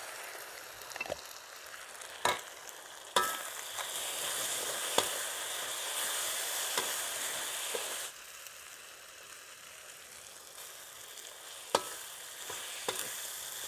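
Chicken stir-frying in a hot pan: steady sizzling, with the spatula clicking and scraping against the pan now and then. The sizzle grows louder for about five seconds from about three seconds in, as the premade stir-fry sauce goes into the pan.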